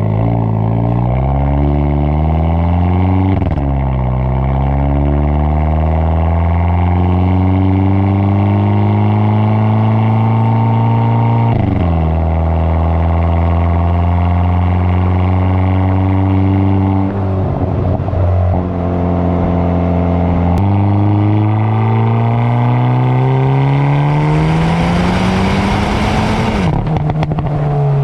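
A Hyundai N hot hatch's four-cylinder engine accelerating hard through the gears. Its note climbs steadily and drops abruptly at each upshift, twice early on. The note breaks up for a few seconds past the middle, then climbs again, and near the end it falls away amid a rush of hiss and a few sharp cracks.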